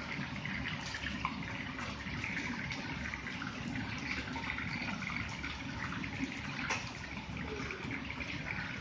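Commercial wok range in use: water running steadily from the range's tap into a pot, mixed with the steady rush of the gas burner and the crackling sizzle of battered spare ribs deep-frying in oil.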